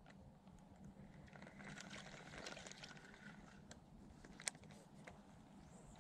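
Near silence: faint outdoor ambience with a few small clicks, the sharpest about four and a half seconds in.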